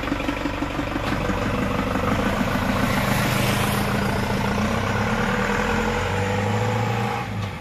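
Loaded pickup truck's engine running as the truck pulls away and drives off, its steady hum dropping off sharply near the end.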